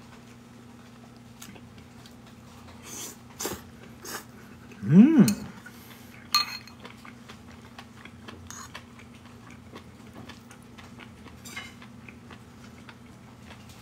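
Chewing while eating, with a few clicks and a ringing clink of a spoon against a plate. About five seconds in comes the loudest sound, a short vocal sound that rises and then falls in pitch.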